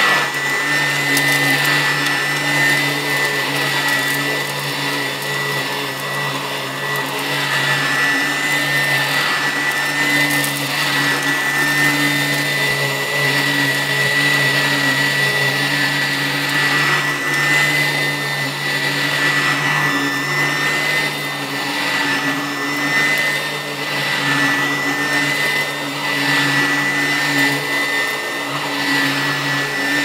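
Upright vacuum cleaner running on carpet: a steady motor hum with a high whine on top, the sound swelling and easing with each push and pull of the cleaner.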